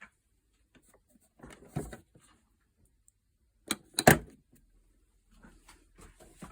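A few knocks and handling clatter in a small room, the loudest a double thump about four seconds in, with softer small knocks near the end.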